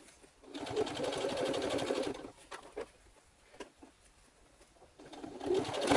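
Brother computerized sewing machine stitching through layered suede leather in two runs: a fast, even burst of stitching for nearly two seconds, then a pause with a few light clicks, then the machine starting up again near the end.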